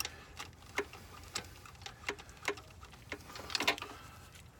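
Irregular light clicks and taps, about two a second with a quick cluster late on, from hand tools and engine parts being handled in a car's engine bay.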